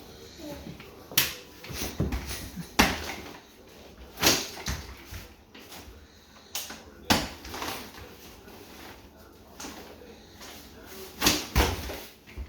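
Sharp clicks and knocks of a folding pushchair's frame and wheels being handled and set up, several separate snaps spread a second or few apart, with rustling in between.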